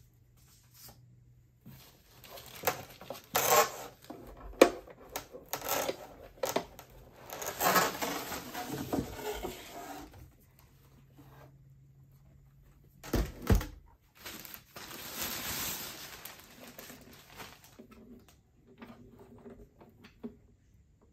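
Cardboard box parts and a plastic wrapping bag handled and rustled while a portable power station is unpacked, in uneven bursts of crinkling and clicks. A couple of dull thumps come a little past the middle, followed by a longer rustle of the plastic bag.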